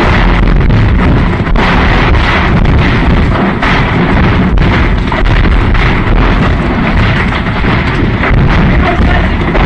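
Burning ammunition dump with shells cooking off: a loud, continuous low rumble packed with rapid bangs and crackles.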